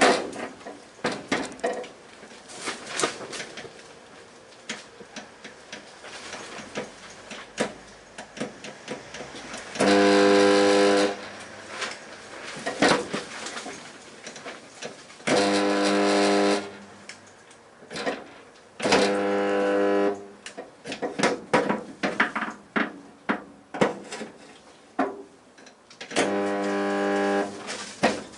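Welder making four short spot welds on a car body panel, each a steady buzz of about a second. Scattered taps and metal clatter come between the welds.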